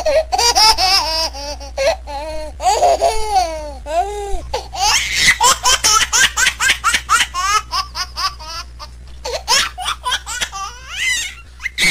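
A person laughing hard and high-pitched, in quick repeated fits of laughter.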